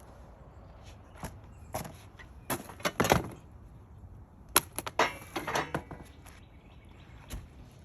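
Sawmill parts and packaging being handled: a series of short knocks and clatters, grouped about one, two to three, and five seconds in.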